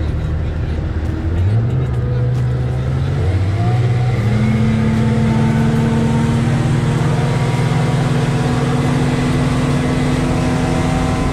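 Yamaha 300 hp four-stroke outboard motor running under way. The throttle comes up in two steps over the first four seconds, raising the engine pitch, then holds at a steady cruising pitch.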